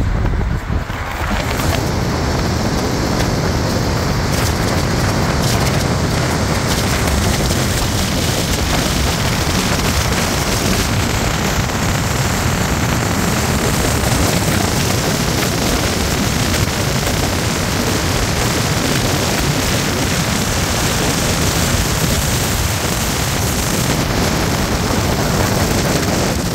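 Loud, steady rushing of wind buffeting the microphone.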